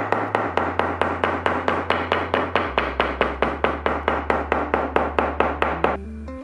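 A small mallet tapping a stitched leather strap against a wooden board, about four to five even blows a second, flattening the stitched seam. The tapping stops near the end, leaving soft background music.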